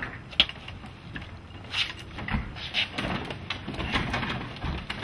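One-piece wooden tilt-up garage door being lifted by hand with no springs on it: its hinge and arm hardware knocks, clicks and scrapes irregularly, with a sharp click about half a second in.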